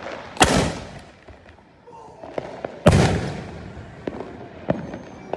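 Homemade firework salutes exploding: two loud bangs about two and a half seconds apart, each echoing after it, followed by a few smaller cracks.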